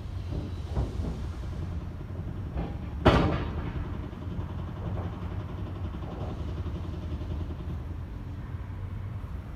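A loud, sharp bang about three seconds in, with a few fainter knocks around it, over a steady low rumble.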